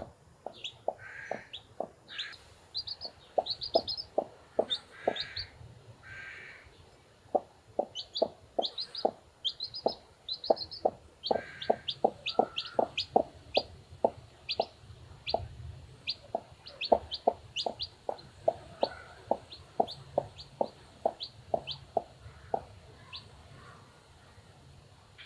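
Broody Brahma hen clucking softly and steadily, about three short clucks a second, while her newly hatched chicks peep in quick high runs over the top.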